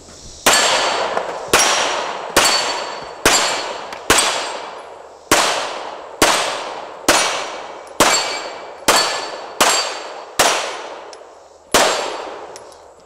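Pistol shots fired at a steady pace, thirteen in all about a second apart, each followed at once by the ringing of a steel plate target as it is hit.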